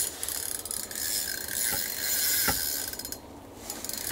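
Ice-fishing reel cranked quickly, a fast ratcheting whir, pausing briefly about three seconds in, as a hooked perch is reeled up through the hole.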